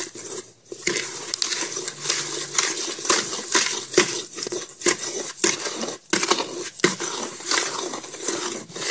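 Quikrete concrete mix being stirred with a mixing stick in a 5-gallon bucket: irregular gritty scraping with frequent knocks of the stick against the bucket.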